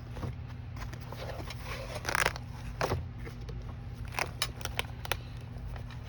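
Plastic alcohol-ink markers being handled and sorted: scattered sharp clicks and short rasps of the pens and caps knocking and sliding against each other, busiest about two seconds in and again around four to five seconds in, over a steady low hum.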